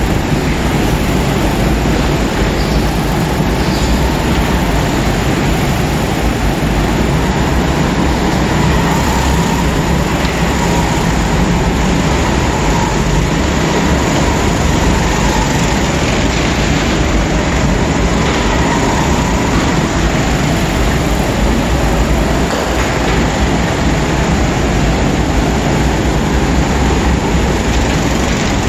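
Go-kart engines running around an indoor karting track, heard as a steady, loud, even din.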